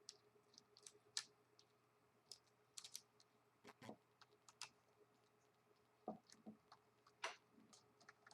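Faint, irregular small clicks and ticks of hand work on a laptop screen assembly: a small screwdriver and screws being taken out of the LCD panel's side frame, and the plastic and metal parts being handled.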